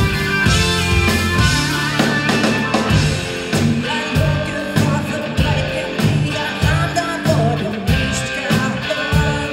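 Live rock band playing with electric guitars, bass guitar, drums and keyboard. Held low notes give way about three seconds in to a steady pulsing beat.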